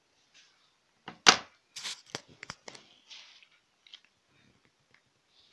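Paper crackling and rustling as a small spiral notepad's pages are handled: a quick run of sharp crinkles about a second in, the first the loudest, then a few faint rustles.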